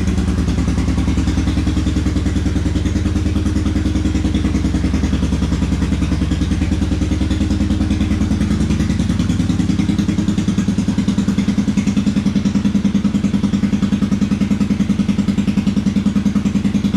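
Honda Magna 250's V-twin engine idling steadily with an even pulsing exhaust beat. It gets slightly louder about ten seconds in.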